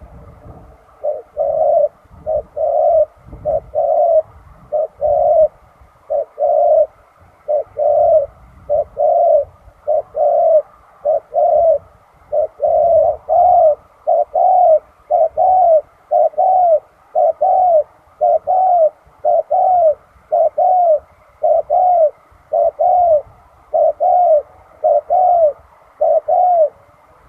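Spotted dove cooing over and over: a long, steady series of short, arched coos, about one a second.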